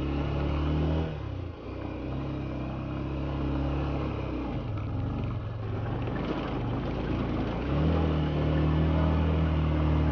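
Motorcycle engine running under changing throttle: its note drops about a second in, picks up again around two seconds, eases off again near five and a half seconds, and rises near eight seconds.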